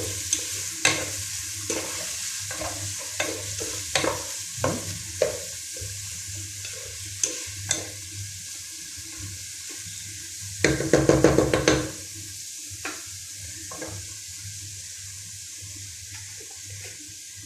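Sliced onion and garlic sizzling in hot oil in a cooking pot, with a spatula clicking and scraping against the pot as they are stirred; a short run of quick, louder scraping comes a little past the middle.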